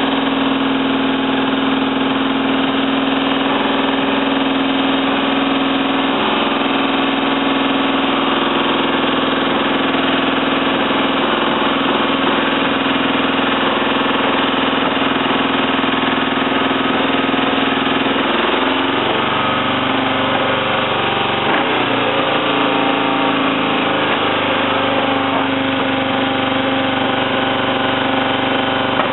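A 1971 BSA Lightning's 650 cc parallel-twin engine idling steadily on its first start after a rebuild. About two thirds of the way through, its note dips and wavers for a few seconds, then settles back to a steady idle.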